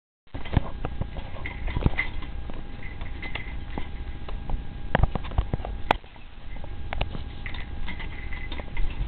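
A Chihuahua and a calico cat play-fighting on carpet: continuous scuffling with scattered sharp clicks and knocks from paws and bodies, starting abruptly just after the beginning.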